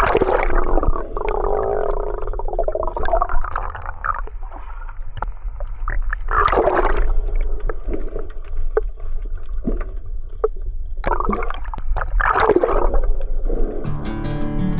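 Seawater gurgling and sloshing around the camera during sea swimming, over a steady low rumble, with several louder gushes of water. Music comes in near the end.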